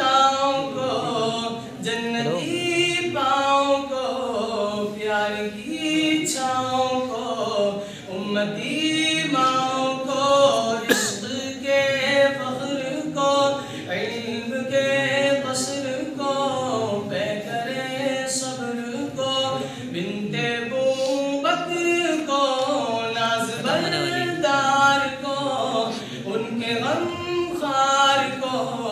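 A man singing a naat, a devotional song in praise of the Prophet, a cappella with no instruments, in long wavering held notes.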